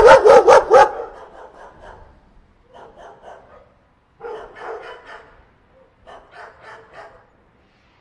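Dog barking: about five quick, loud barks in the first second, then several softer bursts of rapid barks and yaps.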